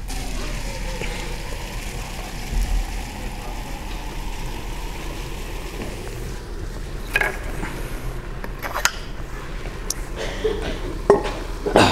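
Liquid nitrogen being poured into a thermos flask, with a steady hissing as it boils off. Several sharp clinks and knocks near the end come from the flask and its handling on the table.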